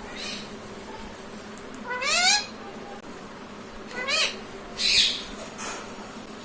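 Pet parrot giving short, squeaky calls: a rising call about two seconds in, a shorter one about four seconds in, then a harsh screech about five seconds in.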